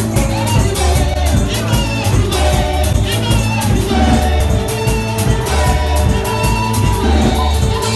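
Loud upbeat music with singing over a strong bass line and a steady drum beat.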